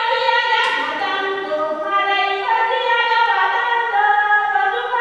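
A group of voices singing an Ewe song together, unaccompanied by drums.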